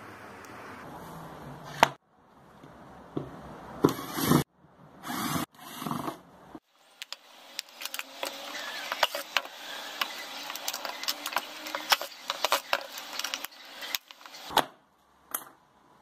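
Small hand tools and fingers clicking and scraping on the metal parts of an opened hard drive as it is taken apart, with several sharp knocks and one louder knock near the end.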